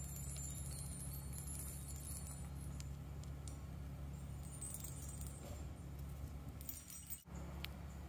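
Harmony ball chime pendants shaken by hand. The small chimes inside the metal balls give soft, high tinkling rings and the balls jingle on their chains. The rings come in clusters near the start, around five seconds in and just before seven seconds, over a steady low hum.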